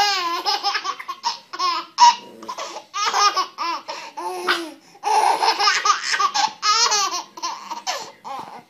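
A baby laughing hard in quick, repeated bursts, the laughs rising and falling in pitch.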